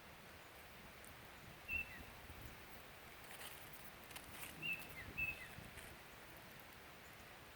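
Faint bird calls, three short chirps that each drop in pitch at the end, over a steady outdoor hush, with a few soft clicks or rustles in between.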